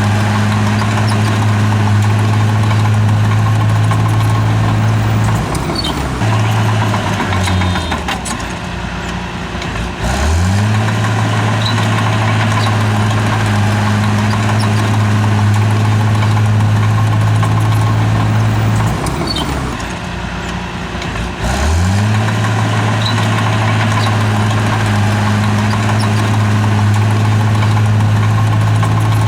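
Bulldozer's diesel engine running steadily at high revs; twice it drops in pitch for a few seconds, then revs back up with a rising whine.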